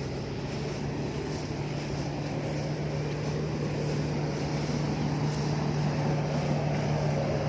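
Rice combine harvester engine running steadily under load, a continuous low hum that grows slightly louder.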